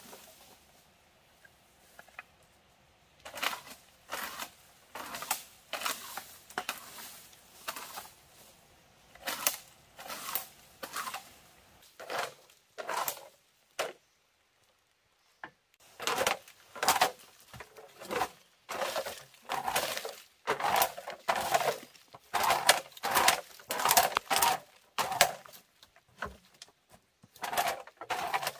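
A series of sharp knocks and cracks at an irregular pace of about one or two a second, fainter at first, breaking off briefly about halfway, then louder and denser.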